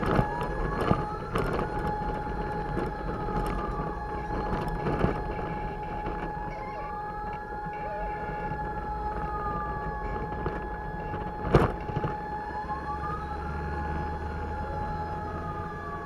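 Fire truck siren on a slow wail, its pitch rising and falling about once every six seconds, over a steady tone and the rumble of the moving truck. A sharp knock comes about two-thirds of the way through.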